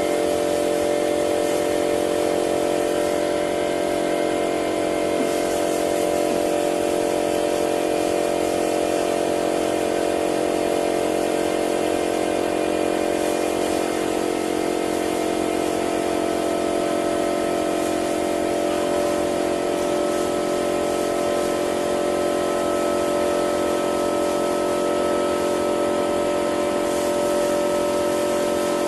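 A machine running with a steady hum of several held tones, unchanging throughout.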